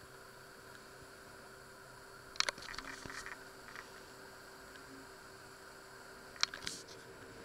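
Steady low hum, broken twice by short clusters of sharp clicks and knocks about four seconds apart.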